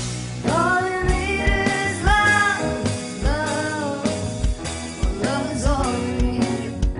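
A song with a female-sounding lead vocal... no — a song with a sung lead vocal over a band with a steady drum beat.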